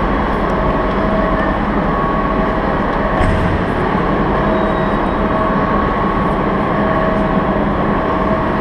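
Steady, continuous din of a large railway station hall, an even rumble with a few constant tones held through it, and a brief knock about three seconds in.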